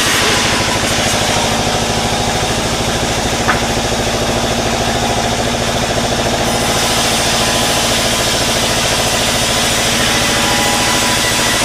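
Engine of a small sawmill running steadily with a fast, even pulse, with one short click about three and a half seconds in.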